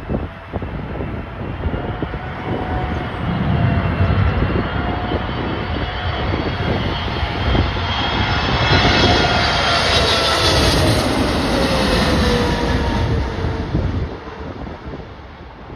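Jet airliner on landing approach passing by, its rising engine noise peaking and then fading, with the engine whine falling in pitch as it goes past. Gusty wind buffets the microphone throughout.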